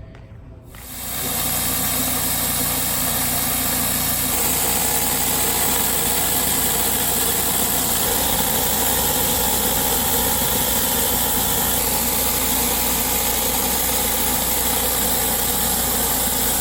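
Gas-engine pressure washer running steadily with a hiss, starting about a second in.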